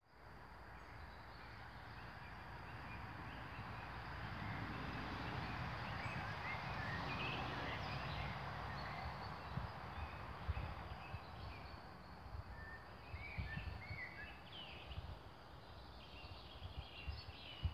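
Outdoor background noise with small birds chirping now and then, more often around the middle and near the end, over a steady rush and an uneven low rumble with a few soft thumps.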